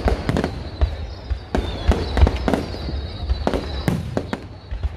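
Aerial fireworks shells bursting in a rapid, irregular series of bangs and pops.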